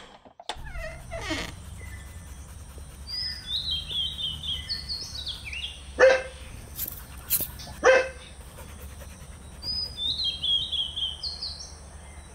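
A dog barking twice, about two seconds apart, at a stranger coming up to the house. A bird calls twice in between with a short run of falling high notes.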